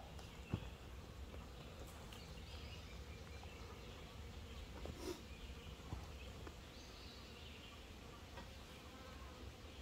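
Faint buzzing of insects, with a few soft knocks and clicks, the sharpest about half a second in.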